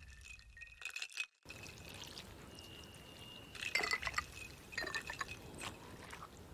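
Ice cubes clinking in a drinking glass with liquid sounds, as cartoon sound effects: a few light glassy clinks, a short gap, then more clinks in small clusters around the middle.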